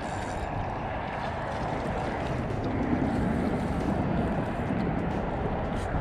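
Steady wind rumbling on the microphone on an open shoreline.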